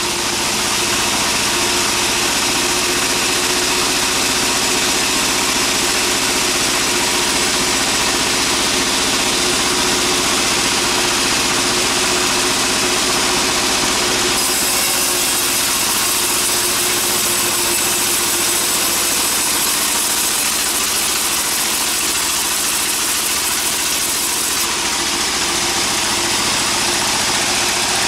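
Engine-driven sawmill machinery running steadily, with a dense hiss over the motor. The hiss turns brighter about halfway through and eases back near the end.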